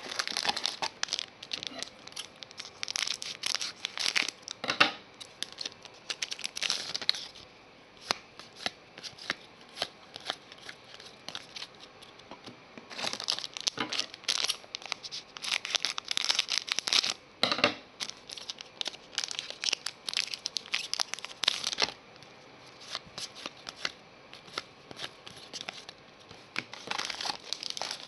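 Trading cards handled one at a time, slid off a stack and against one another in a busy run of papery swishes and small clicks. The sound comes in spells with quieter pauses between them.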